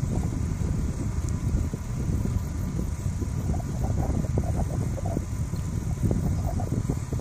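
Wind buffeting the microphone outdoors: a low, uneven rumble that keeps on without a break.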